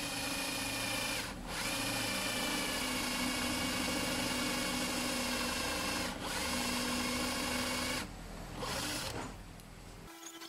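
Electric drill running, boring screw holes in the wood. Its whine dips briefly twice, about a second and a half in and again about six seconds in, then stops about eight seconds in. A short final burst follows about a second later.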